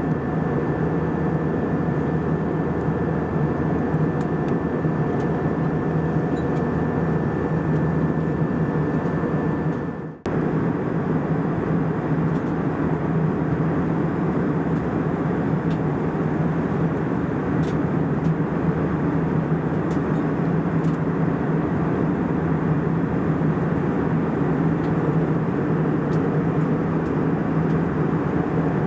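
Steady cabin noise of an Airbus A319 in flight: the drone of its IAE V2500 engines and the rush of air past the fuselage, heard from inside the cabin. A faint high steady whine sits over it until a brief drop-out about ten seconds in, after which the drone goes on without it.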